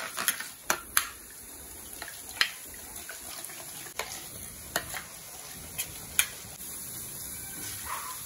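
Boondi batter dripping through a perforated ladle into hot oil in a kadai, sizzling steadily, with a few sharp metal clicks as the ladle scrapes and knocks against the perforated ladle while pushing the batter through.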